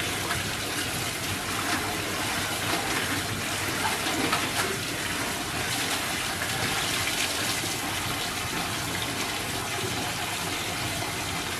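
Tap water pouring steadily into a plastic tub, with some splashing as a cloth is rinsed and wrung in it.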